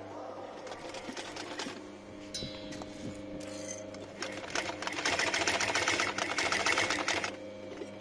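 Golden Wheel single-needle walking-foot industrial sewing machine stitching leather with thick thread in rapid, even clicks. It runs in a few short spurts, then in a longer, louder stretch of fast stitching from about halfway that stops shortly before the end.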